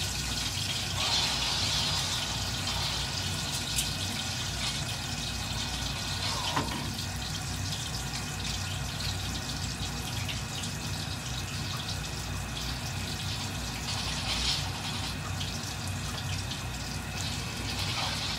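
Pork belly slab deep-frying in hot oil in a wok: a steady sizzle with many small pops and crackles.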